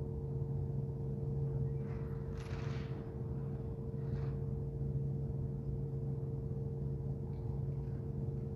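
Steady low hum with two even tones, and a few brief rustles of a person shifting on the organ bench about two seconds in and again around four seconds.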